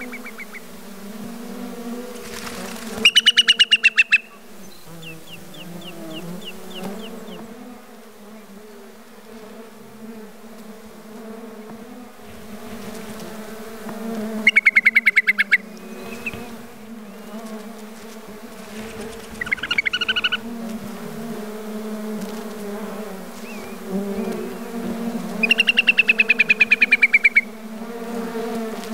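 Flying insects buzzing in a steady hum, broken four times by a loud, rapid trilled whistle from a whimbrel, each trill about a second long and sliding slightly down in pitch.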